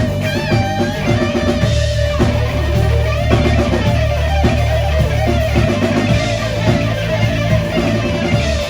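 Live blues-rock band playing: an electric guitar lead bends notes and holds one long note with vibrato over bass and drums.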